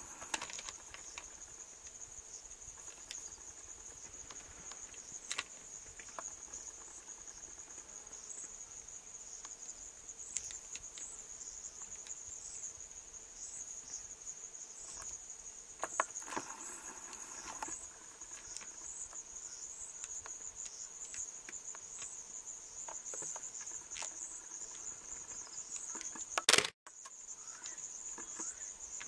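Crickets calling in a steady, high-pitched chorus, with scattered faint clicks, a brief pitched sound a little past halfway, and one sharp knock near the end.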